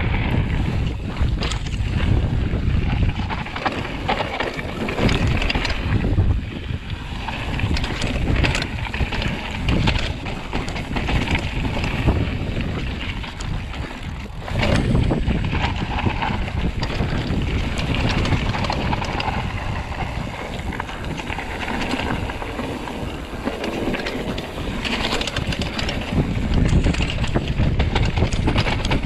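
Wind buffeting the microphone over the rumble and crunch of mountain-bike tyres on a gravel and dirt trail, with the knocks and rattles of a Sonder Signal Ti hardtail bouncing over rough ground during a fast descent.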